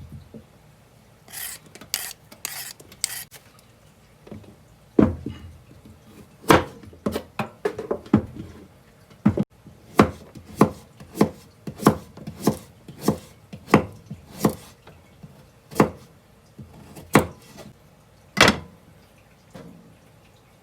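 Knife chopping ingredients on a cutting board: sharp separate chops at an uneven pace of about one a second, after a few lighter scraping strokes near the start.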